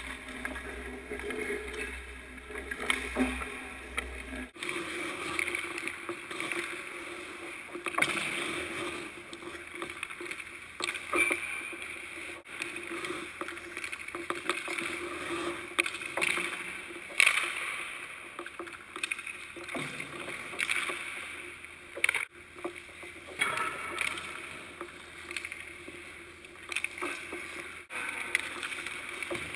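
Hockey skate blades scraping and carving on rink ice, broken by several sharp cracks of stick striking puck and pucks hitting the boards.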